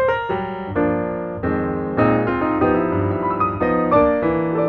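Background piano music: quick single notes give way to slower held chords in the middle, then quicker notes return near the end.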